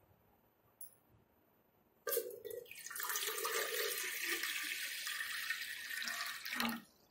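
A stream of water poured into a large aluminium pot, splashing onto the water already in it. The pouring starts suddenly about two seconds in and stops shortly before the end.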